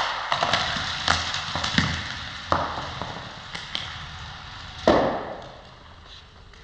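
Die-cast Hot Wheels car rolling along plastic gravity track, a rattling rush that fades away, broken by a string of sharp clacks and knocks as it runs through the track pieces, the loudest knock about five seconds in.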